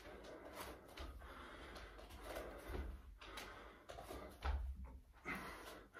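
Faint dull thumps of feet landing on the floor during lunges, a few in all, the loudest about four and a half seconds in.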